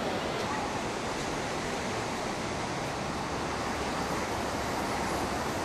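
Steady rushing noise with no distinct events: outdoor wind and ambience on the camera microphone.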